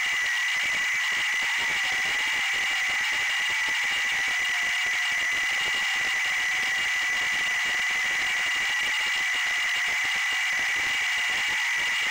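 Micro FPV quadcopter's motors whining steadily over a constant hiss, their pitch wavering up and down with the throttle.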